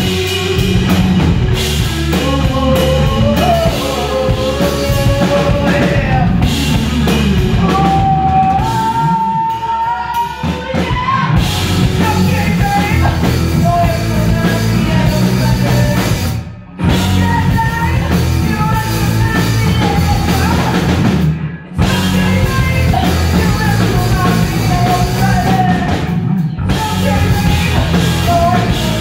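Live rock band playing: a woman singing over electric guitar, electric bass and a drum kit. The whole band stops for two short breaks, a little past halfway and again about three quarters through.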